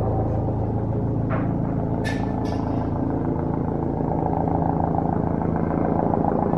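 Helicopter running steadily as it comes in to land: a continuous low rotor and engine hum that gets slightly louder near the end. A few short sharp ticks sound about a second and two seconds in.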